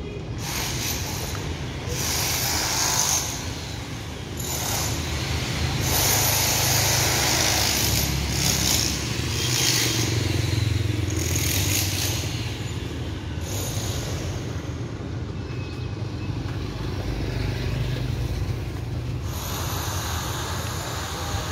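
Town street traffic: motor vehicles passing, the noise swelling and fading several times over a steady low rumble.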